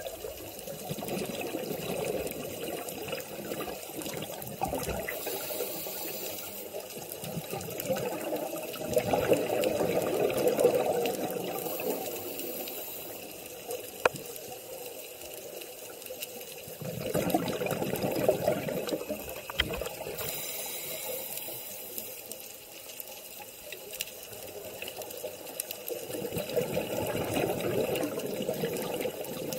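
Scuba diver breathing through a regulator underwater. Four bubbling exhalations come about every eight to nine seconds, each followed by a short hiss of inhalation.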